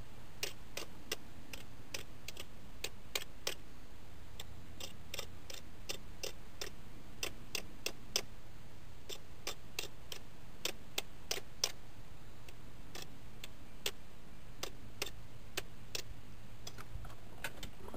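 Light, irregular clicking, about two or three clicks a second, over a faint low hum.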